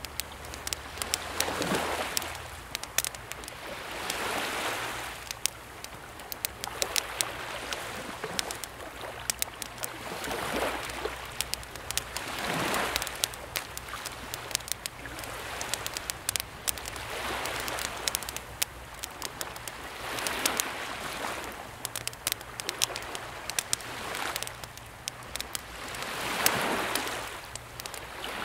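Wood campfire crackling with frequent sharp pops, over calm sea waves that wash in and draw back every few seconds.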